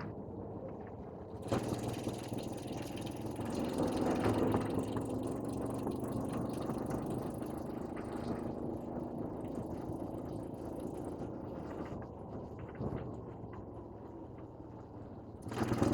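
A motor vehicle's engine running steadily, with a low drone that swells a little about four seconds in and eases off near the end.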